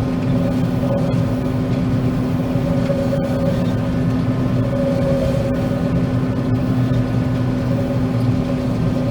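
John Deere 9500 combine running steadily while harvesting soybeans: an even machine drone with a constant hum.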